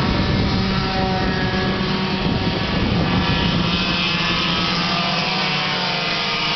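Racing go-kart engines running at speed: a steady, loud, high-pitched engine drone whose pitch drops a little about halfway through.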